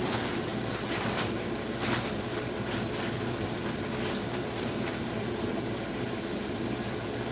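Steady hum of grow-room ventilation fans, with a few soft knocks and rustles of something being handled close by.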